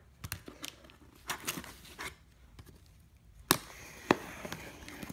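Cardboard box being handled and its packing tape cut with a knife: scattered light taps and knocks, a sharp click about three and a half seconds in, then the blade scraping through the tape.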